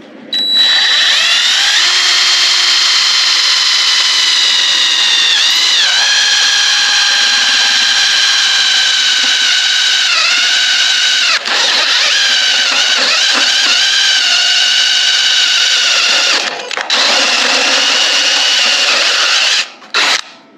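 Cordless drill with an inch-and-a-quarter hole saw cutting through rusty steel sheet: a loud, steady high whine whose pitch sags briefly a few times as the saw bogs under load. It breaks off briefly twice, then stops and starts in a few short bursts near the end.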